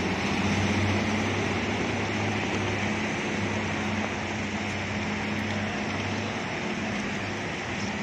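Heavy rain hissing on wet pavement, with a Hino coach's diesel engine running at low revs as the bus pulls slowly out of its bay. The engine gives a steady low hum under the rain.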